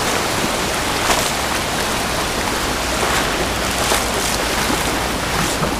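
Shallow water splashing and surf washing over a rocky reef as someone wades in, a steady rushing with a few louder splashes.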